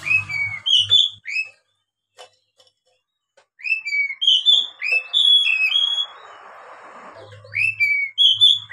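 Oriental magpie-robin singing: bursts of clear whistled notes, many of them short downward slides, with a pause of about two seconds after the first phrase.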